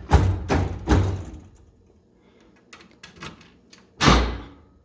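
Clicks and knocks of a key and a freshly fitted ICON toolbox lock cylinder being worked by hand: three sharp clicks in the first second, a few lighter ticks, then a louder knock near the end.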